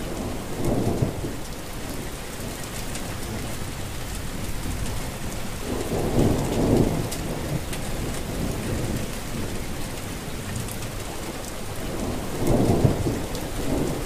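Steady rain with fine drop ticks, broken by three short low rumbles: about a second in, around six seconds in, and near the end.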